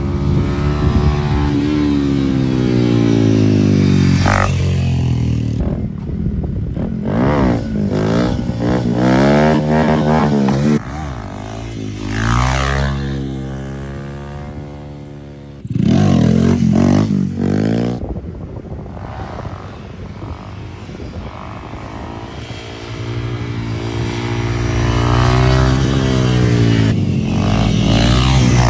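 Motorcycles with aftermarket exhausts being ridden hard. The engine pitch climbs and drops repeatedly as they accelerate, shift and back off, heard in several short clips joined by abrupt cuts.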